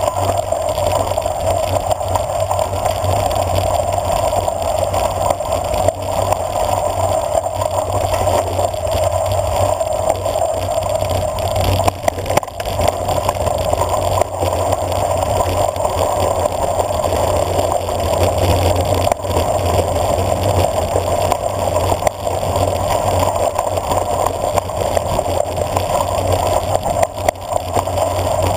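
Bicycle coasting fast down a gravel road: a steady rush of wind on the camera microphone mixed with tyre noise on gravel, with a few brief knocks and rattles from the bike over bumps.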